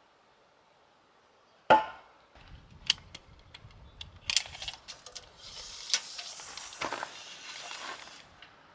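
A single sharp knock about two seconds in, then a scatter of lighter clicks and clatter, and a few seconds of rustling hiss near the end.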